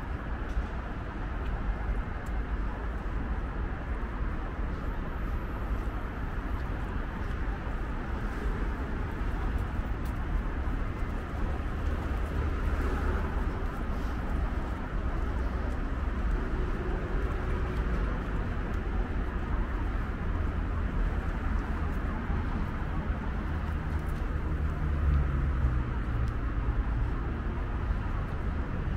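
City street traffic: motor vehicles running on a nearby road as a steady low rumble. Near the end an engine's note rises as a vehicle speeds up.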